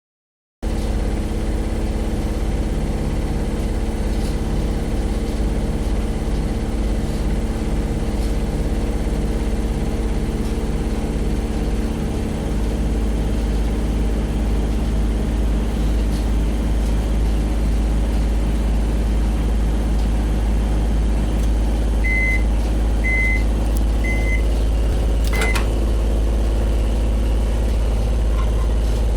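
Microwave oven running with a steady hum, then three short beeps about a second apart near the end, followed by a sharp click.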